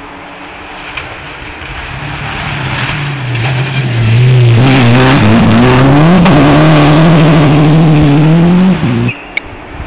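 Citroën DS3 rally car approaching and passing at speed on a gravel stage: the engine builds up, is loudest for about five seconds with its note dipping and then climbing again as it accelerates, over the hiss of tyres and thrown gravel, and cuts off abruptly near the end.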